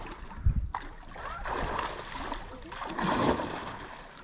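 Water splashing and swishing close by as a snorkeler moves through it, with a dull thump about half a second in and uneven surges of sloshing after.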